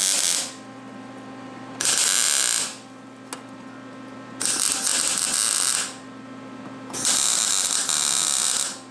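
Electric arc welder laying a series of short tack welds on steel: a loud crackling arc that sounds in separate bursts of one to two seconds, about four in all, with a steady hum between them.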